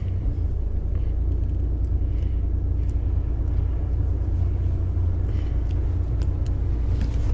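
A car running, heard from inside the cabin: a steady, unbroken low rumble of engine and road.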